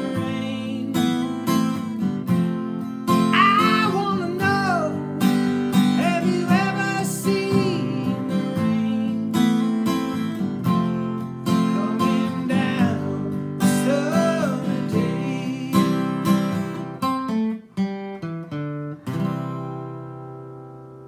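Acoustic guitar strummed in a steady rhythm. Near the end it breaks into a few separate chords, and a last chord is left ringing and fading out.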